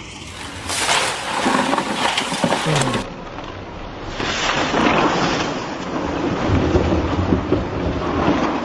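A wood-processing machine chewing through wood: a loud, dense crashing and grinding noise with no steady tone. It changes abruptly about three seconds in.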